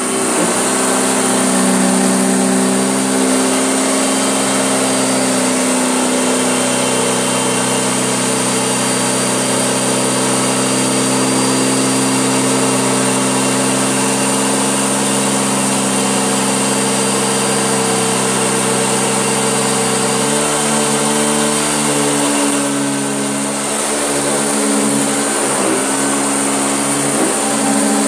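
Hoover Junior upright bagged vacuum cleaner running steadily while it picks up dog hair and dirt. Its motor note drops about twenty seconds in.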